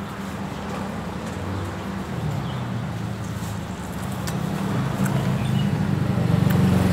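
A motor vehicle engine running close by, a steady low drone that grows gradually louder toward the end, with a few faint clicks.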